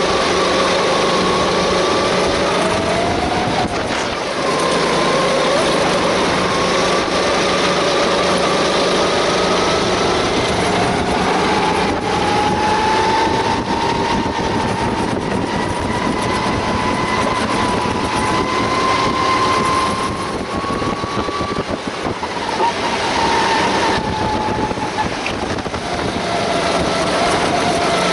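Sodikart rental kart's engine heard onboard at racing speed, mixed with the engines of the karts running just ahead. The engine pitch dips about four seconds in, climbs slowly for about fifteen seconds as the kart accelerates, then falls again near the end as it slows for a corner.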